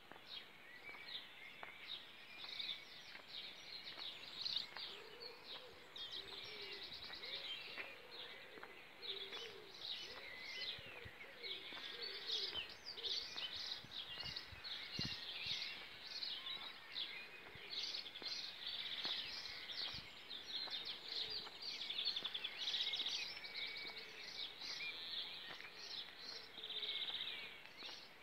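Many songbirds singing together in a continuous chorus of overlapping chirps, trills and phrases. A lower, wavering call joins in a few seconds in and again near the end.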